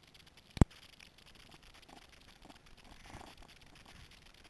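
Faint, muffled river-water noise picked up by a camera held underwater, with one sharp click a little over half a second in.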